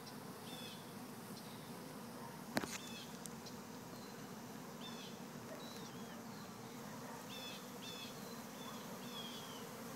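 Honey bees buzzing in flight around the hive entrance, a steady hum. Short high bird chirps come now and then, and a single sharp click sounds about two and a half seconds in.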